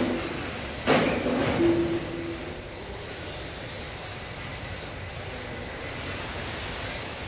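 Several 1/10-scale electric touring cars with Turnigy 17.5 brushless motors whining as they accelerate around the track, in repeated high rising whines. A short noisy burst comes about a second in, followed by two short beeps.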